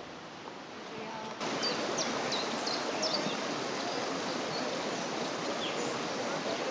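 Woodland ambience: a steady rushing hiss that jumps louder about a second and a half in, with small birds chirping repeatedly over it.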